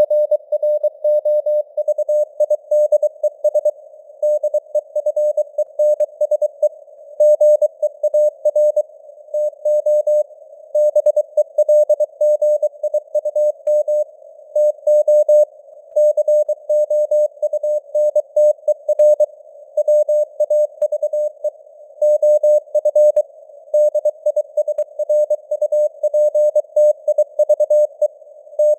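Morse code sent as a single mid-pitched tone keyed on and off in rapid dots and dashes at 23 words per minute, with simulated radio band noise hissing around it between the characters.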